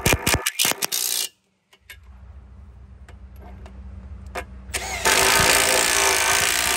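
Milwaukee Fuel right-angle impact wrench hammering on the tooth bolts of a Tigercat 724G feller buncher's saw disc, taking the teeth off. There is a short burst at the start, a quieter low hum in between, and a second, longer run of hammering from about five seconds in.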